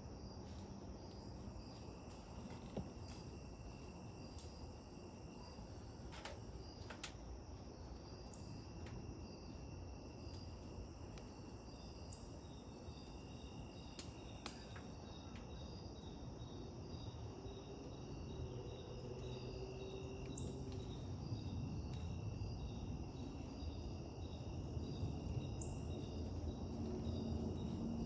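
Insects chirping steadily in a continuous pulsing chorus, with a few sharp clicks and a low rumble that grows louder toward the end.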